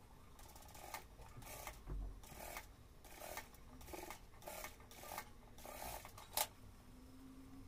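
JACK single-needle industrial sewing machine stitching corduroy in about seven short bursts, stopping between each as the curved seam is turned under the foot. A low thump about two seconds in and a sharp click near the end.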